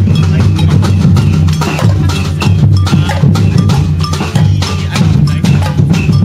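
Percussion-heavy band music: many quick drum strikes with bright knocking hits over a low, stepping bass line.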